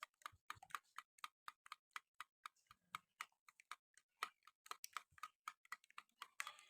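Eggs and sugar being beaten by hand in a bowl: faint, regular clicks of the utensil striking the bowl, about four a second.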